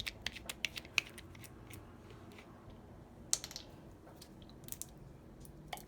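Light scattered clicks and taps from handling a lemon juice bottle over a cup as lemon juice is added, with one brief rush of noise about three seconds in.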